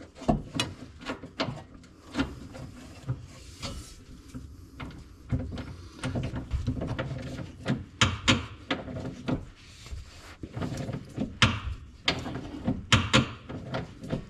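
Hand-tool work tightening the upper shock absorber mounting nut: irregular metallic clicks, knocks and scrapes of a wrench on the nut and stud, some of them sharp.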